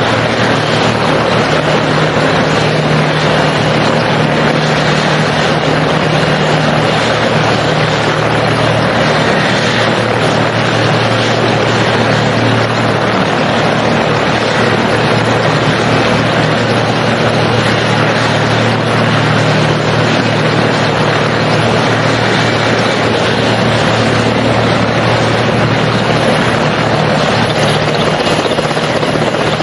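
Helicopter in flight: a steady, loud rotor and turbine drone that holds unchanged throughout.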